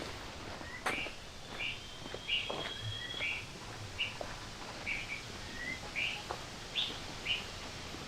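A bird calling: a run of short, clear chirps repeated about every half second, with a couple of sharp knocks early on.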